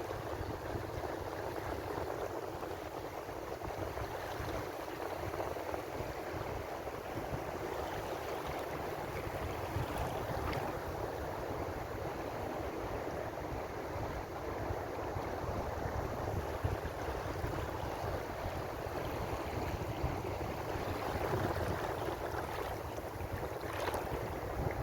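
Ocean waves washing on the shore in a continuous wash of surf, with a brief brighter splash about ten seconds in and again near the end.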